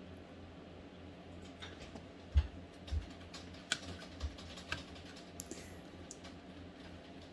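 Scattered light clicks and a few dull knocks as a hard drive is handled and worked out of a laptop's drive bay, the loudest knock about two and a half seconds in.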